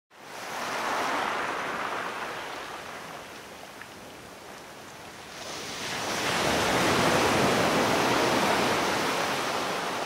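Sea waves washing in. One wave swells and fades over the first few seconds, and a second, stronger wash rises about halfway through and holds.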